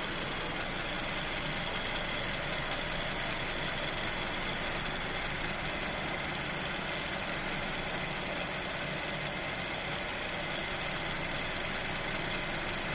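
Car petrol engine idling steadily while its ignition timing is set by turning the distributor by hand. Two brief clicks about three and five seconds in.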